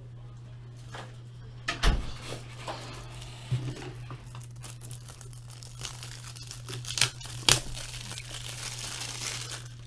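Crinkling and rustling of plastic as trading cards are handled and slid into sleeves and top loaders, with a few sharp clicks and taps. A steady low electrical hum runs underneath.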